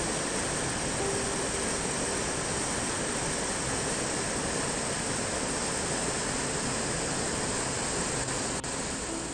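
Mountain stream rushing over boulders and small cascades: a steady rush of water.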